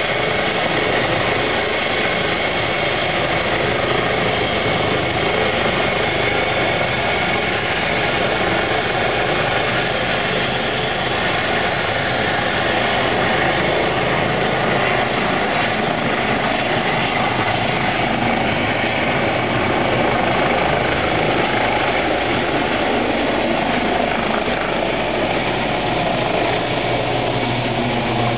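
Eurocopter EC135 twin-turbine air-ambulance helicopter running on the ground with its rotors turning: a loud, steady turbine and rotor noise. Near the end the sound shifts as the helicopter lifts off.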